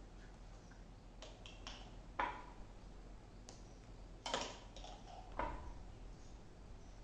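A utensil clicking and scraping against bread slices and a plate while pizza sauce is spread: about eight light, separate clicks and scrapes, a few with a short ring, the loudest about two, four and five and a half seconds in.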